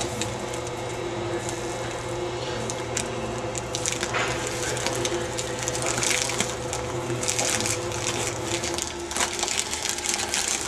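Clear plastic vacuum-bag film crinkling and rustling as it is handled and pressed around pedal moulds, over a steady low machine hum.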